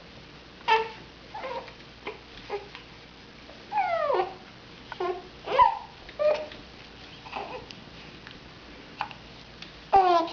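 Two-month-old infant cooing and making short squealing vocal sounds, a dozen or so brief calls with sliding pitch, one long falling coo about four seconds in and a loud one near the end.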